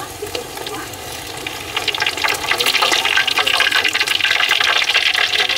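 Hot oil sizzling and crackling in a wok around a whole breaded giant gourami being deep-fried and lifted out with tongs; the sizzle grows louder about two seconds in.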